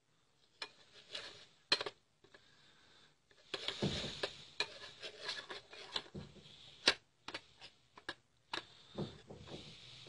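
A spoon clinking and scraping against a bowl as rose water goes into gram flour: scattered sharp taps among stretches of rubbing and scraping.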